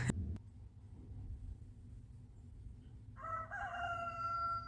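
Rooster crowing once, starting about three seconds in: a single cock-a-doodle-doo that ends in a long held note.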